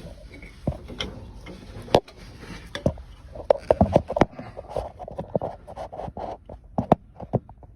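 Irregular clicks, knocks and light scrapes of hands unplugging and handling a fuel pump driver module and its plastic connector, with a quick run of clicks about halfway through.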